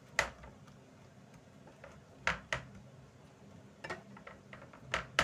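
Hands pressing and patting a ball of yeast dough flat on a plastic tray, with about half a dozen sharp taps and knocks, some in quick pairs.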